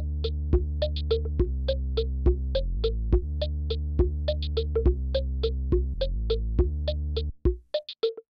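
Synthesizer background music: a sustained bass under a quick, evenly repeating pattern of short plucked notes. The bass stops about seven seconds in, leaving a few last scattered notes.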